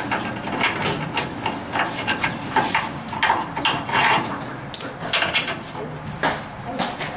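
Irregular metal clinks, knocks and scraping from hand work on the rusty rear bumper bracket under a Ford F100 pickup, as the bumper's fastenings are worked loose.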